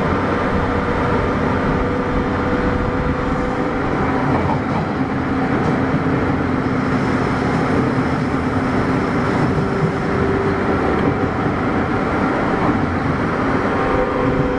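Running sound inside the motor car of a JR 201 series electric train: steady rumble of the wheels on the rails, with the thyristor chopper control's steady tones running through it.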